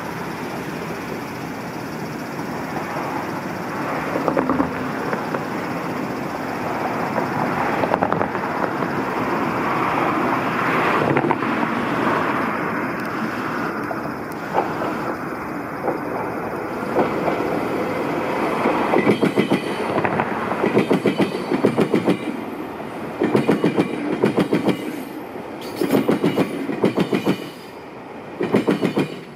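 Meitetsu electric train crossing a diamond crossing: a rising rumble as it comes near, then loud double clacks, one pair after another, as each set of wheels drops over the gaps where the two lines cross. The clacking stops just before the end.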